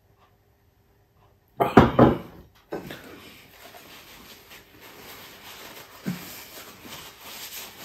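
Two loud breathy gasps about one and a half seconds in, after a long drink of juice, then a paper napkin rustling and crinkling as it is unfolded and rubbed over the mouth.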